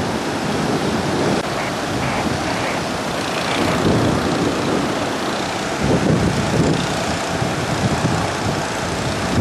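Strong wind buffeting the microphone over heavy surf, a steady rushing noise with gusty low rumbles.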